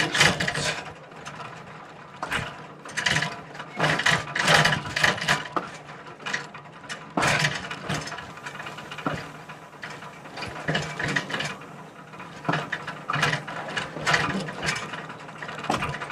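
Heritage train rolling slowly along the track: irregular bursts of metallic clanking, creaking and rattling from the wheels, couplers and car body, every second or so, over a steady low rumble.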